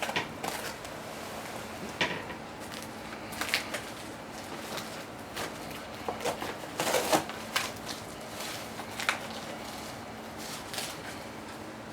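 Wrapping being pulled and pressed around a rack of marinated ribs: irregular crinkling and rustling with a few sharper crackles, over a faint steady hum.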